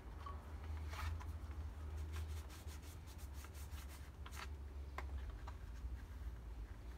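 Rubbing and scraping handling sounds, a quick run of short clicks and scuffs over a steady low rumble, typical of bolts and their cloth or leather wraps being handled.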